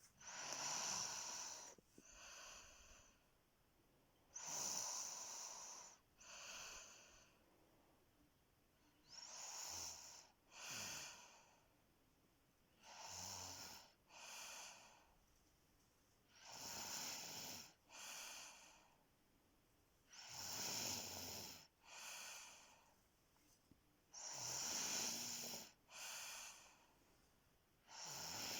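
Snoring in a slow, regular rhythm: each breath cycle is a longer, hissing draw followed closely by a shorter one, repeating about every four seconds.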